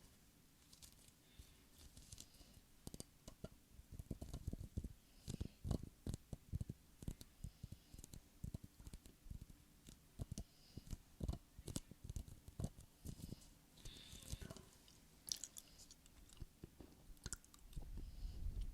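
Quick, irregular taps and clicks close to a sensitive microphone, several a second, with a few crackly higher clicks and a soft low rumble near the end.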